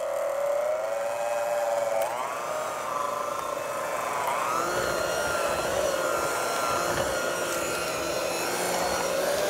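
Electric hand mixer running with its twin beaters in a stiff, sticky dough, a steady motor whine that rises in pitch about two seconds in and again near the middle as the load on the beaters shifts.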